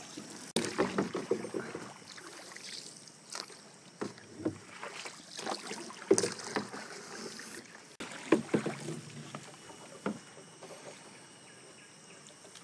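Paddle strokes in calm water beside a small boat: a homemade bamboo paddle with a plastic blade dips and splashes irregularly, every second or two, with drips and water lapping between strokes.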